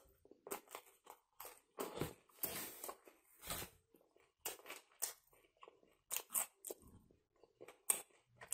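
A person chewing a mouthful of kebab sandwich in flatbread: irregular crunching and mouth noises, about two a second.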